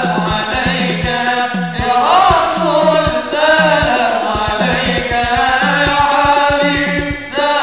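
Islamic devotional sholawat sung by a male lead through a microphone, with other voices joining, over a quick beat of hadrah frame drums.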